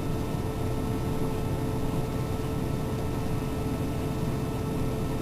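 A steady mechanical hum and hiss with a faint constant tone, unchanging throughout.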